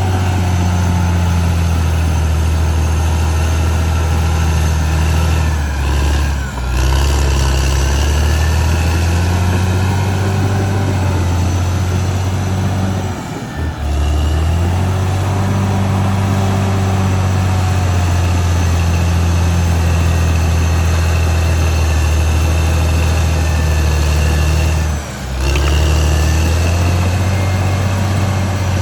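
Caterpillar D6R XL bulldozer's diesel engine running steadily at work, a loud deep drone that briefly drops out three times.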